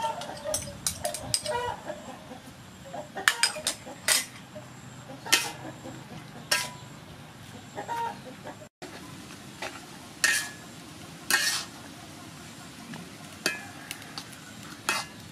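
Metal spatula scraping and clinking against an aluminium wok in irregular strokes as beef and leafy greens are stir-fried, over a low sizzle. Short calls, like a hen clucking, sound now and then among the strokes.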